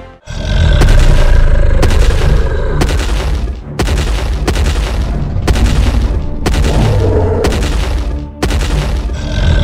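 A series of heavy booms, about nine of them, spaced roughly a second apart over a continuous deep rumble, with music faintly underneath.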